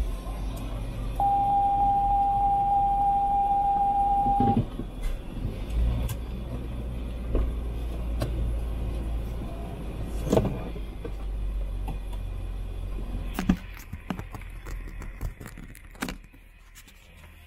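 Low road and engine rumble inside a moving truck's cabin, with a steady pure beep tone starting about a second in and lasting about three seconds, and a few scattered knocks. The rumble drops away about fourteen seconds in.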